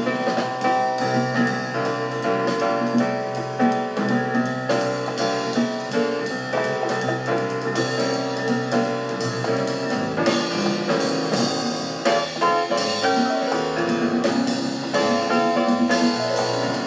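Instrumental music with drums and sustained melodic notes, played from a vinyl record through the Retrolife UD006 turntable system's bookshelf speakers.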